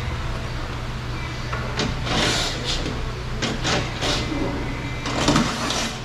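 Clunks, knocks and scrapes of hands and tools working inside a car's stripped door shell, in several short separate bursts, over a steady low hum.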